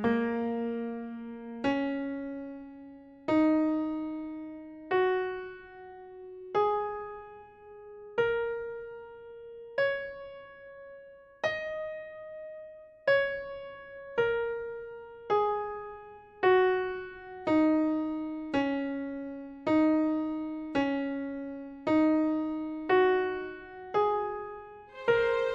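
Background music: a slow solo piano melody of single struck notes, each left to ring and fade. The notes come about every second and a half at first and pick up to about one a second in the second half.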